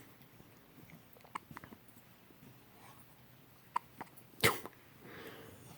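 Newborn baby hiccupping: one sharp, sudden hiccup about three-quarters of the way through, with a few faint ticks before it.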